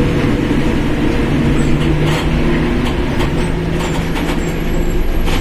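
Mercedes-Benz OF1721 BlueTec 5 bus on the move: its engine and differential drone with steady tones that step up slightly in pitch about halfway through, over short rattles and clicks.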